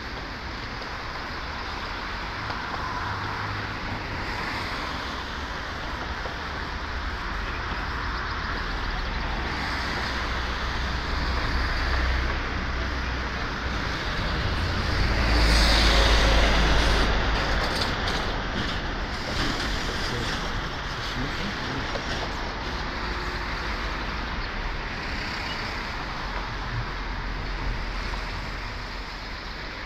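Road traffic noise, with one vehicle passing close and loud about halfway through.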